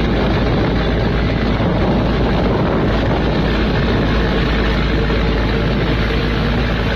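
Heavy surf breaking continuously in rough seas, a loud steady wash of water noise, with wind buffeting the microphone in a deep rumble.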